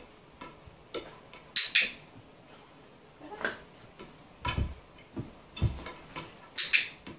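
A golden retriever stepping on and off a wobble board and rocking it, with scattered taps as the paws land on the board. The loudest sounds are two quick pairs of sharp clacks, about a second and a half in and again near the end. Two dull thumps in the middle are the board tipping against the floor.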